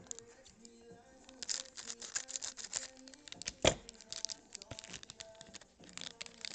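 Foil wrapper of a baseball card pack crinkling and tearing as it is handled and opened by hand, with one sharp snap about three and a half seconds in. Faint background music underneath.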